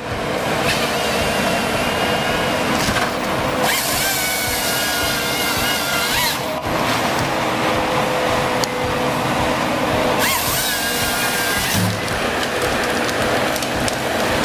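Ponsse Ergo 8W forestry harvester at work, its engine and hydraulics running steadily. Twice a high whine rises in and holds for a second or two as the harvester head saws and feeds the tree. Background music plays underneath.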